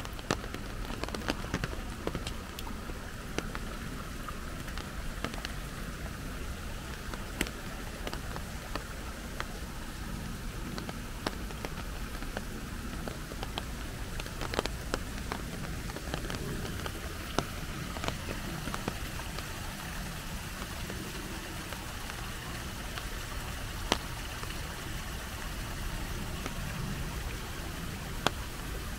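Steady rain, with many drops ticking sharply at irregular moments over a constant hiss.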